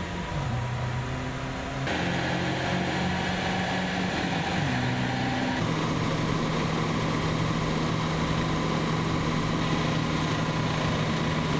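Volkswagen Kombi (Type 2) van engine running at speed on a rolling-road test stand, with hum from the rollers and tyres. The engine note shifts pitch a few times in the first six seconds, then holds one steady pitch.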